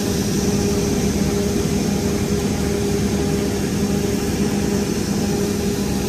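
Combine harvester running steadily, a constant drone with a steady low hum.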